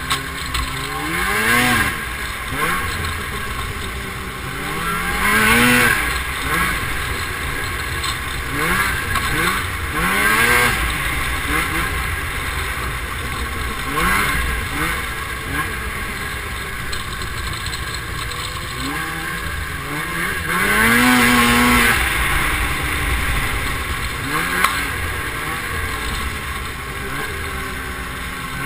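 Snowmobile engine running at speed, its pitch climbing and dropping again and again as the throttle is opened and eased, over a steady rushing noise.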